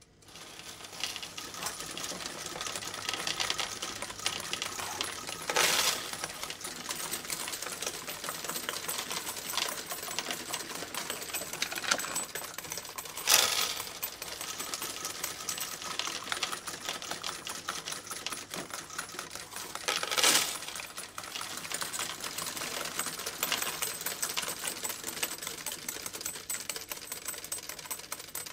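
Automatic coin counting machine running, coins rattling rapidly through its sorter in a dense, even clatter, with a few louder bursts of clattering along the way.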